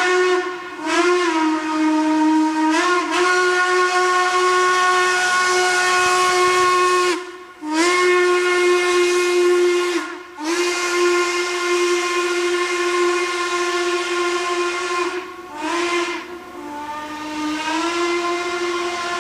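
Train fogger whistle sounding long blasts of one steady note over a hiss of escaping air or steam, broken by a few short gaps. The pitch sags and climbs back at the start of several blasts.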